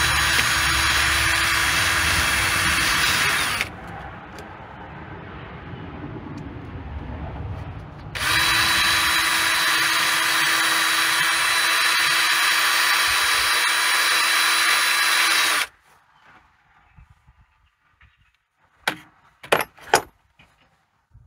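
Cordless drill spinning a wire brush against the engine's gasket surface, scrubbing off old gasket material, in two long steady runs with a constant whine: one brief and one of about seven seconds starting about 8 seconds in. A few light clicks and knocks of the tool follow near the end.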